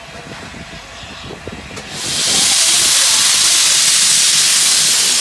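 Steam hissing loudly from an LNER A4 steam locomotive. The hiss starts about two seconds in, holds steady and cuts off sharply at the end.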